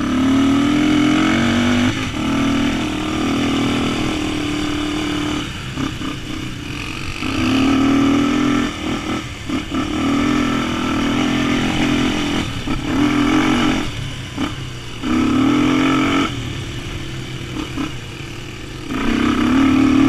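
Dirt bike engine being ridden along a trail, its note rising and falling as the throttle opens and closes about six times, over a steady rush of noise.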